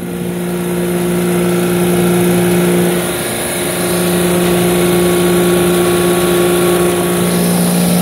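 Walk-in freezer condensing unit running: the semi-hermetic refrigeration compressor and condenser fan give a loud, steady hum. The compressor has just restarted after tripping on oil failure and is running with very little oil in its crankcase.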